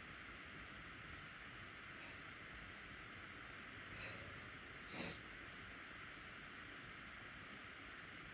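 A person sniffing sharply through the nose once, very briefly, about five seconds in, with a fainter sniff about a second before, over a steady background hiss.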